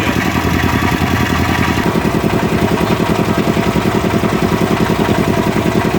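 Motorboat engine running steadily, with a fast, even throbbing beat.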